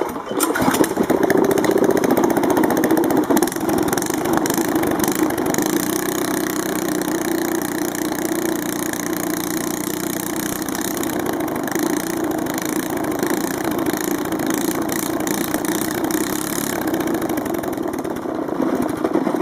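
Chinese Honda-clone small engine running at high speed with its muffler removed, a loud, raw open-exhaust sound that holds steady and then cuts off suddenly at the end.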